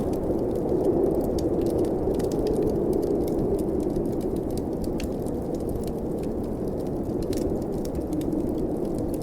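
Steady rushing snowstorm wind, swelling slightly about a second in, with the small crackles and pops of a wood fire scattered throughout.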